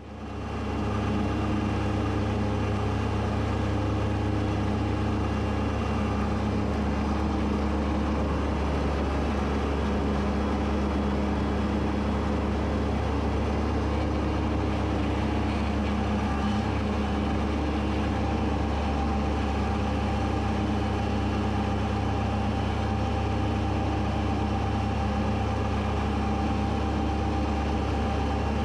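Kubota B2601 compact tractor's three-cylinder diesel engine running steadily under load while mowing grass, a deep, even drone that fades in at the start.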